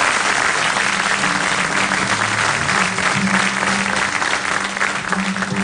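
Audience applauding steadily, with a few low held instrument notes sounding underneath.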